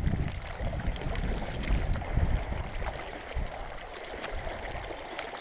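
Water splashing and sloshing in the shallows at the riverbank as a hooked wels catfish is brought in, with heavy low rumbling surges loudest in the first two and a half seconds, then a steadier wash with a few small clicks.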